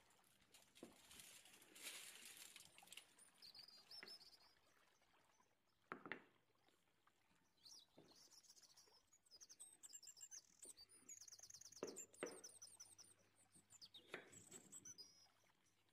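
Faint birds chirping, with quick high repeated notes and trills, and a few soft knocks in between.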